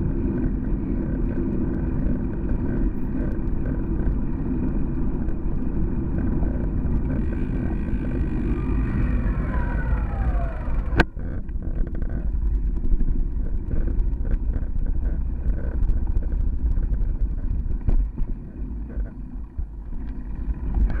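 Wind buffeting and road rumble on a handlebar-mounted bike camera while riding, a dense low rush throughout. Near the middle a whine slides down in pitch, followed by a sharp click, and after that the rumble turns rougher and rattly with many small knocks as the bike rolls over pavers and pavement joints.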